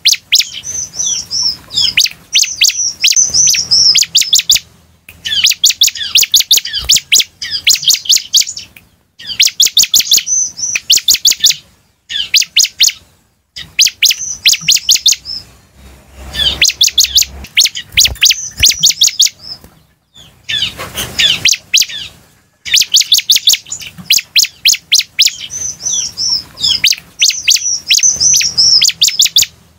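Bar-winged prinia (ciblek) singing loudly: rapid runs of sharp, high chirping notes in bursts of a few seconds, each burst followed by a short pause.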